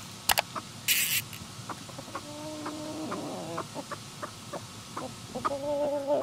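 Backyard chickens clucking, with two drawn-out calls, one about two seconds in and one near the end. A few sharp clicks and a short rustle come at the start.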